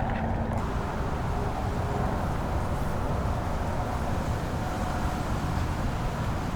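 Steady low outdoor rumble, a wide open-air ambience with no single event standing out.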